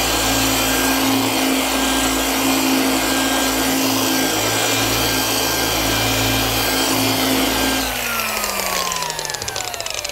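Electric paint polisher running steadily with its pad working across a car's painted panel at a lowered speed, on a quick pass to work out the leftover polish residue. About eight seconds in it is switched off and its whine falls in pitch as the motor spins down.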